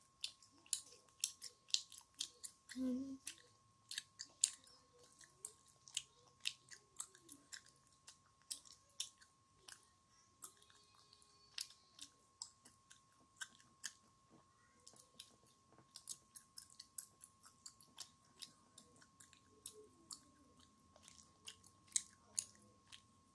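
A child chewing bubblegum close to the microphone: short wet smacking clicks, about two to three a second.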